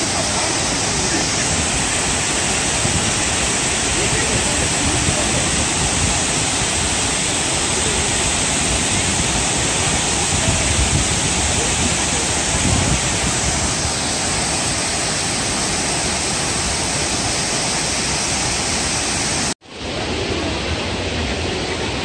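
Waterfall rushing steadily, an even wash of falling water. It cuts out for an instant near the end, then comes back.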